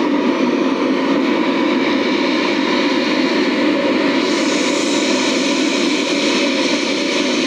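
A steady, loud rushing noise with no beat or tune, played through a stacked carnival sound-system rig of subwoofers and line-array speakers during a sound check.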